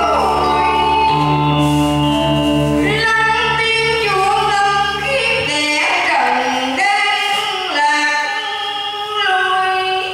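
A song: singing voices, likely women's, over musical accompaniment. The low bass accompaniment drops out about five and a half seconds in, leaving the voices with lighter backing.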